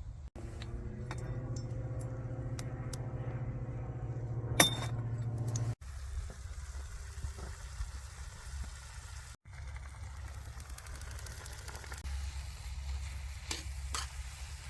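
Food sizzling in a pan during camp cooking, with utensils clinking against the pan now and then and one sharper clink about four and a half seconds in. The sound changes abruptly a few times.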